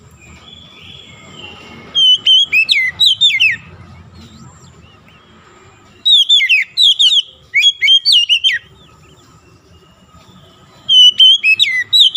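Oriental magpie-robin singing: three loud phrases of quick, sweeping whistled notes, each lasting a couple of seconds, with short pauses between them.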